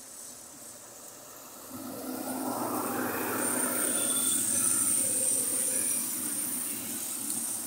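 Motorcycle road traffic passing close by: a rush of engine and tyre noise that swells about two seconds in and holds, with a thin high whine over it.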